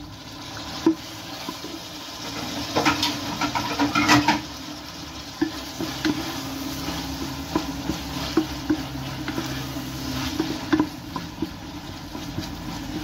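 Diced tomato, onion and red pepper frying in olive oil in a pot, stirred with a wooden spoon that scrapes and knocks against the pot. The stirring is loudest around three to four seconds in.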